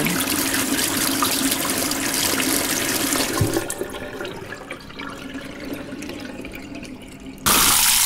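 Bathroom water running, a steady rushing that falls off to a quieter, duller flow about three and a half seconds in, with a single low knock there. Near the end a loud rush of running water starts suddenly.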